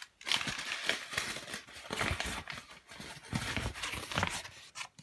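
Irregular clicking, scraping and rustling, with a few heavier knocks about two and three and a half seconds in.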